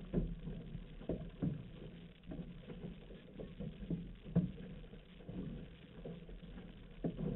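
Outrigger canoe paddles catching and pulling through the water, with water splashing and rushing along the hull; each stroke gives an irregular dull thump.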